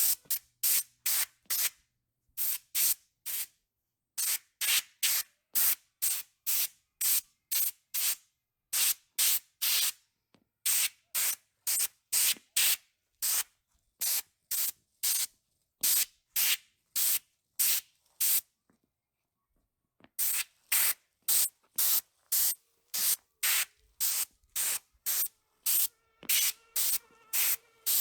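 Compressed air from an air compressor let out in rapid short blasts, about two to three hisses a second, blowing dirt and debris out of cracks in the driveway pavement. The blasts pause for about a second and a half about two-thirds of the way through, then resume.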